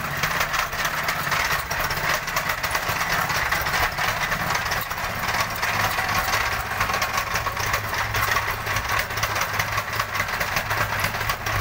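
Petrol tamping rammer running and pounding the ground in a rapid, even rhythm of engine and foot strikes. The owner says the machine is not running normally and is not compacting fully.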